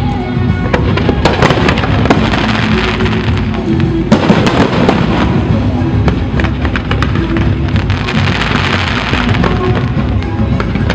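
Aerial fireworks going off in a continuous barrage of sharp bangs and crackles, over loud music.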